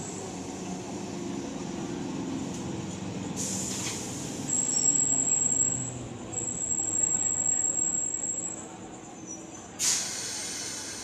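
Indian suburban electric local train pulling into a station platform, its wheels rumbling on the track, with a high steady squeal in two stretches from about halfway as it slows. A sharp burst of hissing noise comes near the end.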